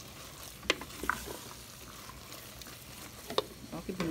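A wooden spoon stirs a sautéed filling of diced canned beef, corn and peas in a stainless steel pot, over a light steady sizzle. The spoon knocks against the pot a few times.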